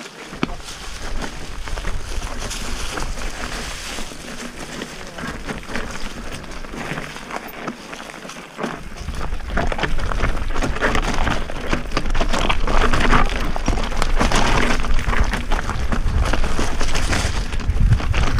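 Mountain bike descending a rocky, loose trail, its tyres crunching over stones and the bike clattering with many small knocks. From about halfway, wind buffeting on the microphone adds a heavy rumble as the speed picks up.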